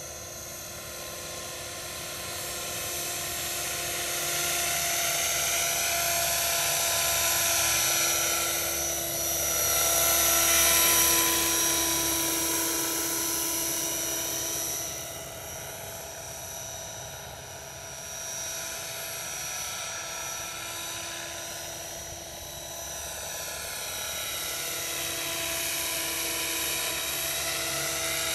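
Scale MD 500D radio-controlled model helicopter flying, a high-pitched whine of motor and rotor with many steady tones. It swells as the model passes close about a third of the way in, fades, then grows louder again near the end.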